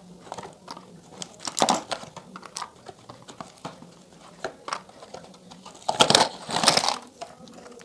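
Plastic lipstick tubes and lip pencils clicking and clattering against each other and a cardboard box lined with crinkly foil as they are taken out by hand. About six seconds in comes a louder rustle and clatter as the box is tipped and the rest slide out.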